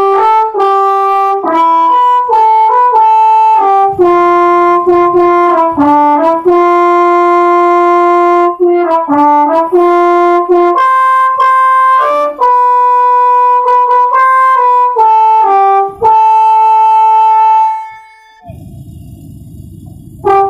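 Bus telolet horn, a set of multi-trumpet air horns, playing a quick melody of several tones sounding together that jump from note to note. About 18 seconds in it stops and a much quieter low noise is left. The horn starts again right at the end.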